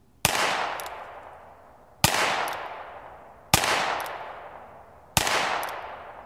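Four shots from a North American Arms Mini Revolver in .22 Long Rifle, fired single action about one and a half to two seconds apart. Each crack is followed by a long echoing tail.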